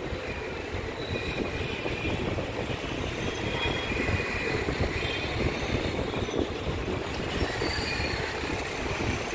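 Indian Railways passenger coach running along the track: a steady rumble and rattle of wheels on rails, with brief high-pitched wheel squeals here and there.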